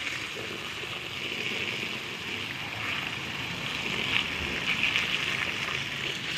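Thin jet of water from a garden hose splashing onto mulched soil: a steady hiss.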